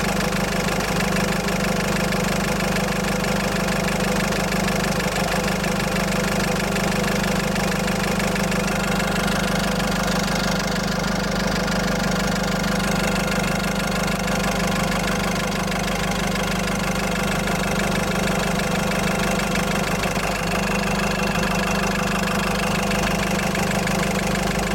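Mahindra Xylo engine idling steadily in the engine bay, with a hollow-type sound in the background that the owner hears as an abnormal noise at idle rpm.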